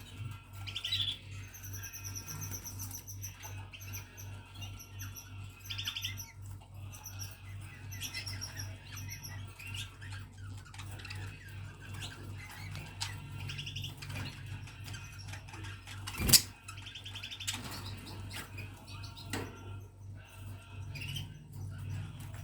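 A group of caged budgerigars chirping and chattering in short repeated calls and trills, over a steady low hum. One sharp knock stands out about 16 seconds in.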